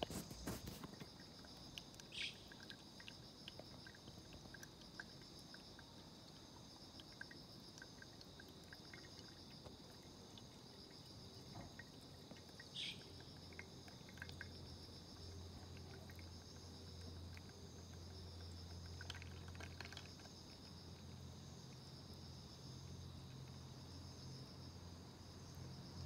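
Singing insects trilling steadily in a chorus, with a couple of short sharp chirps. A faint low hum comes in about halfway through.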